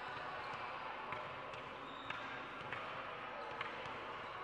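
Basketball bouncing on a court: several sharp thuds at uneven intervals over a steady background of hall noise.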